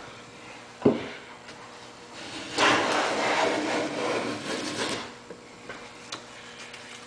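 Hand plane cutting a shaving along the edge of a board: one long planing stroke of about two and a half seconds near the middle, after a sharp knock about a second in. It is taking a few thousandths off the center of the breadboard end to make a spring joint.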